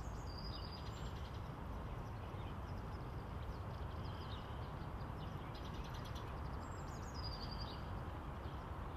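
Songbirds chirping in short high phrases, in three brief spells, over a steady low background rumble.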